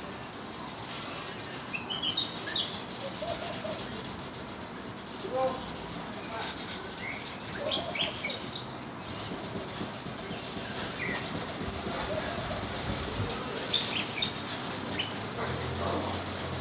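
Continuous hand wet-sanding of a plastic car headlight lens, an abrasive sanding pad rubbed back and forth over the lens with spray lubricant. Birds chirp now and then in the background.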